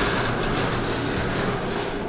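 Garage door moving along its tracks as it is raised, a steady noise with no clear hits.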